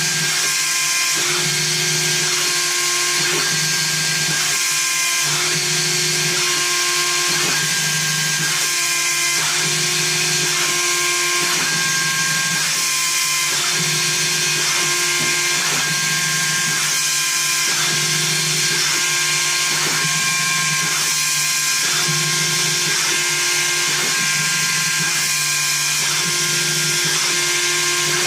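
Small CNC machine's high-speed spindle milling wood with a steady high-pitched whine. The axis stepper motors hum underneath, their tones switching on and off and changing pitch about every second as the cutter follows the toolpath.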